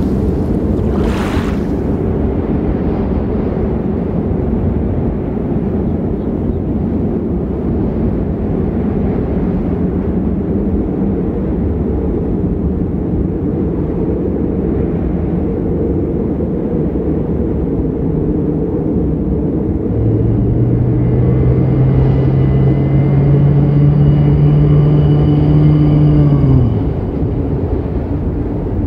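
Steady low rumble of a stormy sea, with a short rush of surf about a second in. About two-thirds of the way through, a loud low drawn-out tone rises slightly in pitch for several seconds and then stops suddenly.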